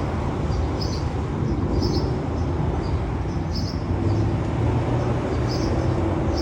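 Steady low rumble of distant traffic, with short high bird chirps every second or two.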